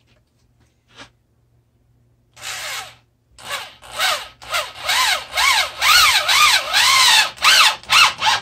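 Corded electric drill boring into a pine 2x4, run in a string of short squeezes of the trigger, about two a second, so that the motor whine rises and falls with each one.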